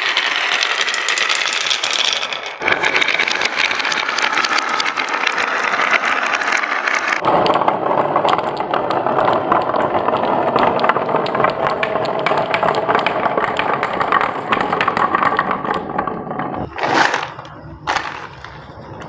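Many marbles rolling and clattering down a wooden marble run, a dense stream of clicks and rattles whose tone changes abruptly twice. Two short, louder bursts of clatter come near the end.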